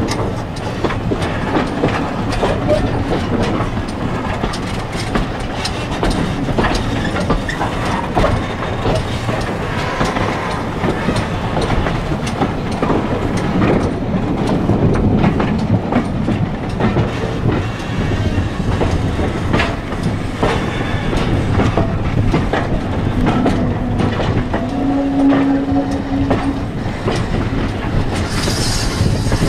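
Passenger train's carriage wheels clattering and knocking over rail joints and points as it runs slowly into a station, heard from a carriage window. A brief steady tone sounds past the middle, and a high hiss comes in near the end.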